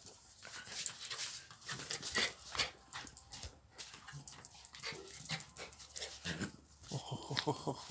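A small dog whimpering and panting in excitement at being greeted and petted, with many short clicks and scuffs scattered through.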